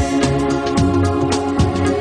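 Background music: held notes over a beat of low drum hits.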